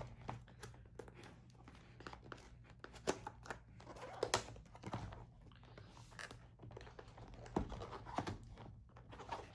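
The end flap of a cardboard box being pried open by hand: a run of light clicks, taps and scrapes with cardboard rustling and a brief crinkle.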